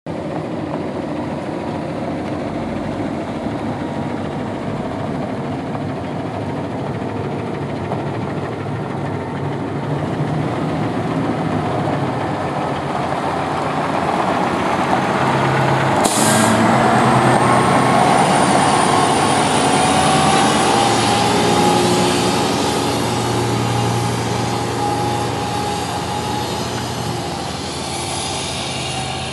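2006 International 9200i semi tractor's Cummins ISX diesel running as the truck drives slowly across gravel, louder as it passes close by. About halfway through there is a short sharp hiss of air from its air system, followed by a thin high whine that climbs in pitch and holds.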